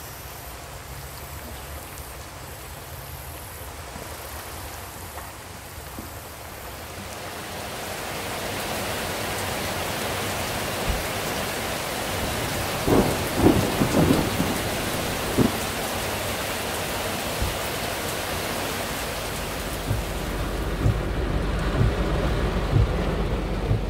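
A rainstorm: steady rain that swells to a heavier downpour after several seconds, with loud thunder claps around the middle. Near the end the rain is heard from inside a car, over a low steady rumble.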